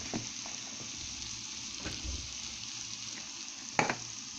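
Bakoula (mallow greens) in a spiced garlic-and-coriander charmoula sizzling steadily in a frying pan, with three sharp knocks spread through it.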